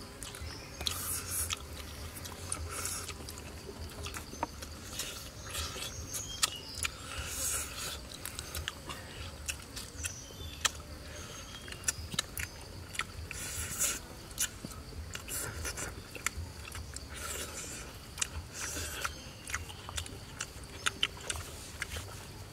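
Close-up chewing of fried eel, with many sharp mouth clicks and repeated bursts of crunching.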